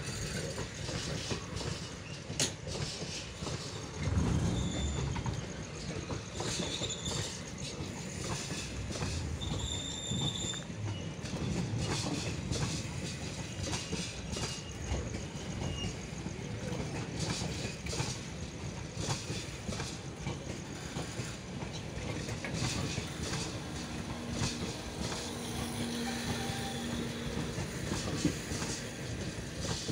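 Passenger coaches of an Indian Railways express rolling past close by, a steady rumble with wheels clattering over rail joints. A couple of short, high wheel squeals come around seven and ten seconds in.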